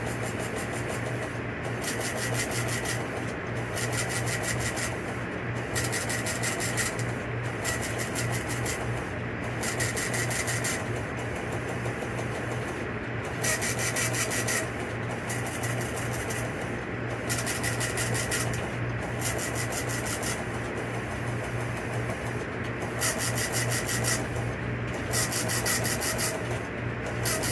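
Radio receiver static: a steady low hum under a hiss that swells and drops every second or two.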